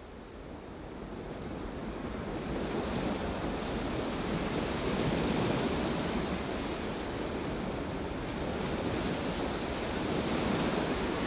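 Sea waves washing in a steady rush of surf, fading in over the first few seconds and then holding level.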